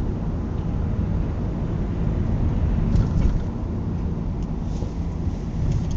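Car interior noise while driving: a steady low engine and road rumble, with a few faint clicks from about three seconds in.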